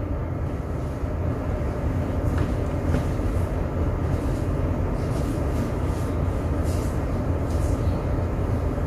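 Steady low rumble of a ship's machinery.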